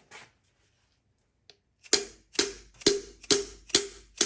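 Steady hammer blows, about two a second, starting about two seconds in, each with a short ring: a piston and connecting rod being pounded out of a cylinder bore of a small-block Chevy 350 V8 during teardown.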